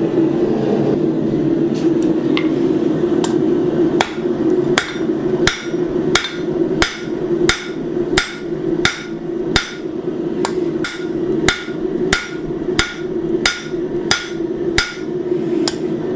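Blacksmith's hammer striking hot steel on an anvil, drawing out the stock for a leaf's vine. A few scattered blows at first, then from about four seconds in a steady rhythm of about one and a half blows a second, over a steady low hum.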